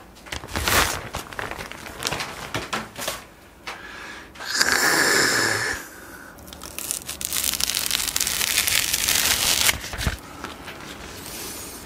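Wrapping crinkling and rustling as it is peeled off a half-wheel of raclette cheese, in several bouts, the longest and densest in the second half.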